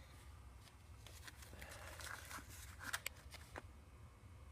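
Almost quiet, with a low steady hum under a few faint, short clicks, the clearest about three seconds in: light handling noise.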